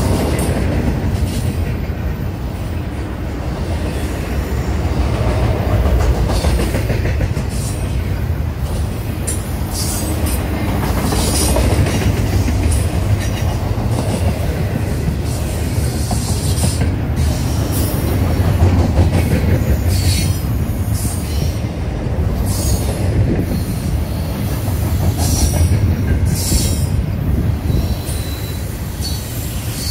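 Norfolk Southern double-stack intermodal freight train rolling past: a steady low rumble of well cars on the rails. Short high-pitched wheel squeals come and go from about a third of the way in.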